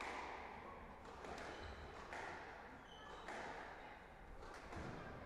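Several faint knocks roughly a second apart, each echoing in a large hall, with a couple of short high squeaks.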